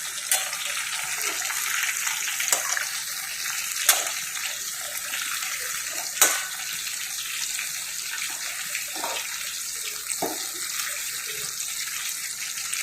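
Chicken pakoras deep-frying in hot oil in a kadai, a steady sizzle, with a few sharp clicks of a utensil against the pan as the pakoras are turned over one by one.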